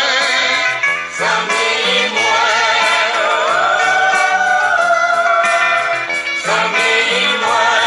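A gospel song playing: a solo voice sings long held, wavering notes over instrumental backing with a stepping bass line.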